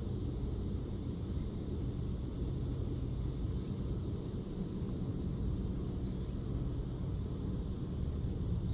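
Steady low outdoor rumble with a faint high hiss above it, unchanging throughout.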